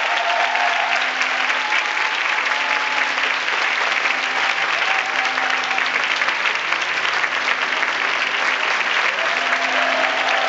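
Audience applauding, a steady dense clapping with a few faint held tones underneath.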